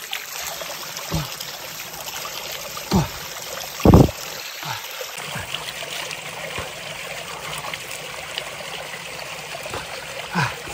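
Water pouring steadily from a metal spout and splashing over hands. A few short low bumps stand out, the loudest about four seconds in.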